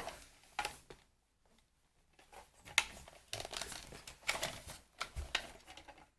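Hands handling a plastic toy monster truck: scattered clicks and rustling, busiest in the second half.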